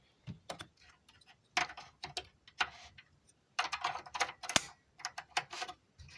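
Irregular small clicks and short scrapes of parts being handled as a case speaker is fitted into a desktop PC case, with one sharp click about four and a half seconds in.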